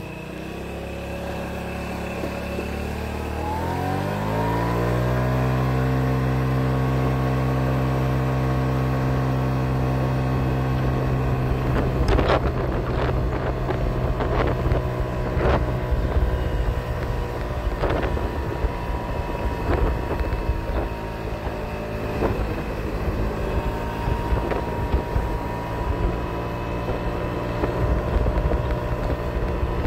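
Moped engine pulling away from a stop, its pitch climbing over about two seconds and then holding steady at cruising speed. From about a third of the way in, wind buffets the microphone in gusts.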